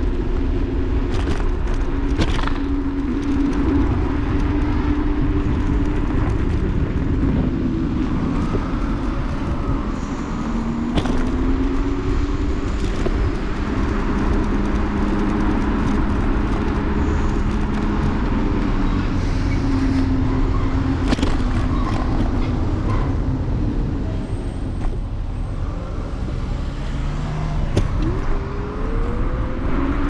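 Electric scooter riding along a city street: heavy wind and road rumble on the microphone, with a motor whine that drifts in pitch with speed and rises near the end, and a few sharp knocks over bumps in the road.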